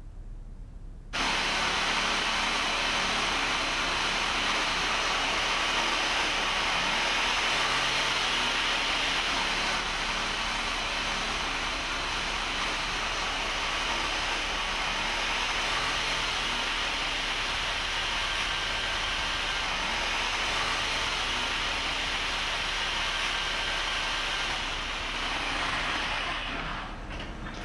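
A loud, steady rushing noise with no clear pitch. It cuts in abruptly about a second in and fades out near the end.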